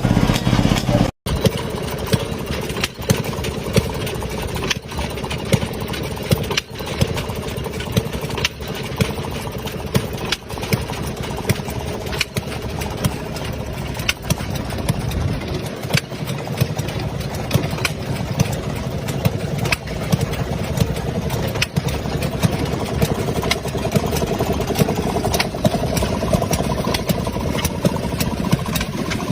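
1928 washing machine running: a steady small-engine drone with a sharp knock about every two seconds.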